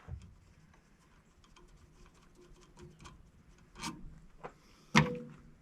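Faint scattered clicks and ticks of small hard objects being handled, with a louder click a little before the four-second mark and a sharp knock about five seconds in.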